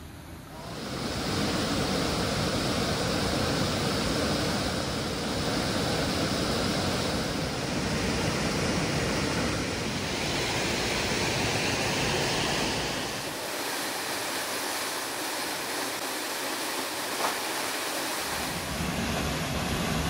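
Steady rushing of a forest stream's flowing water, fading in about a second in. For a few seconds after the middle it loses its low rumble and sounds thinner, then the full sound returns.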